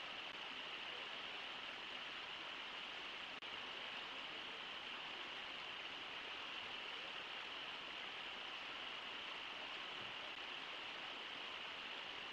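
Steady rush of river water flowing past, with a momentary dropout about three and a half seconds in.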